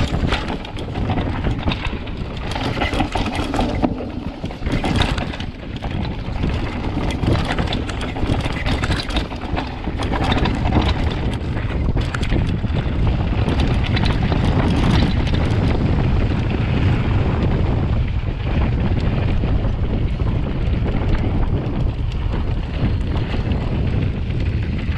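Wind buffeting the camera microphone over the rumble of a downhill mountain bike's tyres on a dirt trail, with frequent short knocks and rattles from the bike in the first half. In the second half the wind rumble grows louder and steadier.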